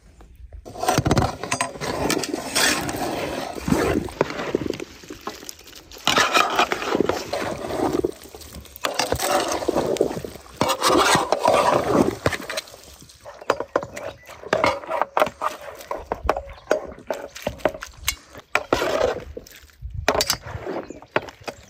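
Food preparation at a table: utensils scraping and clinking against bowls and dishes, with irregular knocks and bursts of handling noise.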